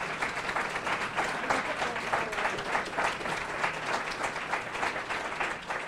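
Audience applauding, many people clapping in a dense, steady patter.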